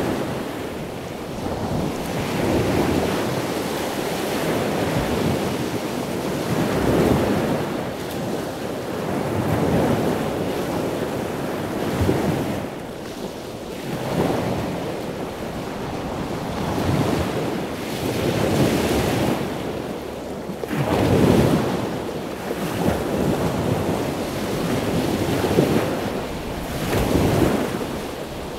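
Rushing water noise that swells and fades about every two seconds, like waves washing in.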